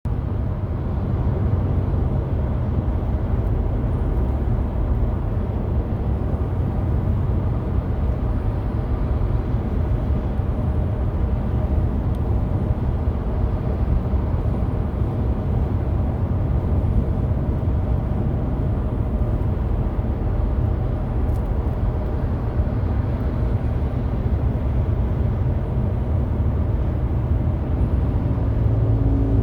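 Steady low rumble of a Nissan car cruising on a highway: tyre, wind and engine noise at a constant speed.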